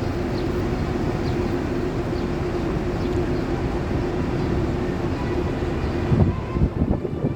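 A heavy vehicle engine running steadily with a constant hum, with a few low thumps near the end.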